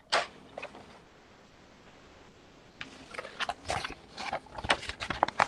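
A single knock, then faint hiss, then from about three seconds in irregular rustling and clicking as a paper picture is handled in front of a laptop microphone.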